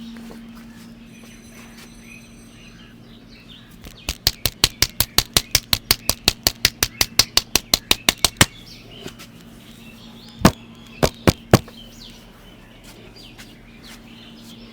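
Rapid, even hand slaps, about five a second for some four seconds, then four more single slaps: a barber's percussive tapping massage with the hands. A steady low electrical hum runs underneath.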